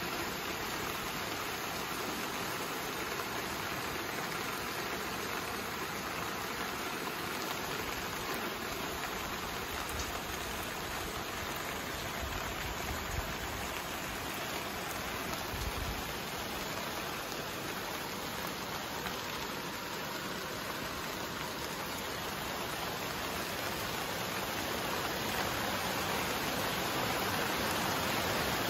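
Heavy rain falling steadily on trees and grass, an even hiss that grows a little louder near the end, with a few brief low bumps about halfway through.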